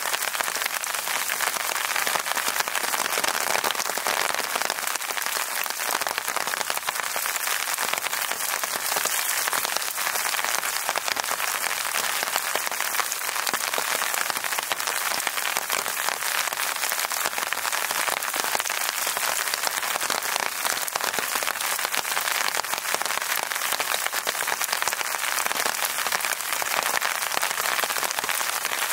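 Steady rain falling, a dense, even hiss of drops that does not let up.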